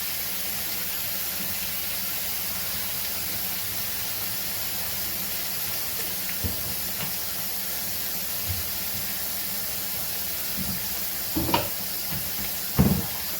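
Steady background hiss, with a few brief knocks and clatters, the loudest near the end.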